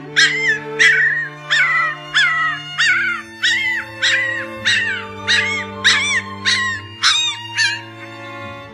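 Puppy crying in short, high-pitched yelps, about two a second, each rising then dropping in pitch. The cries stop shortly before the end, over background music of long held low notes.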